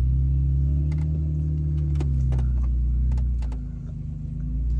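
Jeep engine running at low speed on a rock-crawling trail, its pitch rising and falling once in the first couple of seconds as the throttle is worked, with a few sharp clicks and knocks over it.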